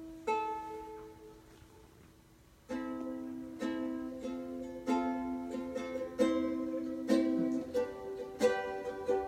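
Ukulele being played: a single plucked chord left to ring and fade away. From about three seconds in comes a steady run of plucked chords, one to two a second, each left ringing.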